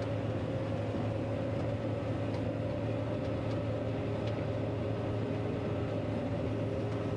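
John Deere 9500 combine running steadily while harvesting wheat: a constant, even machine drone with no change in pitch.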